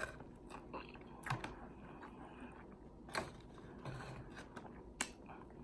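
Close-up chewing and mouth sounds: scattered soft clicks and wet smacks, with louder ones about a second in, at three seconds and at five seconds, and a brief low hum near four seconds.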